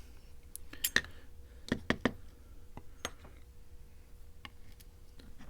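Light metallic clicks and clinks of small lock pins and springs being handled on a hard surface, with a few sharp ticks about a second in, around two seconds in and near the three-second mark.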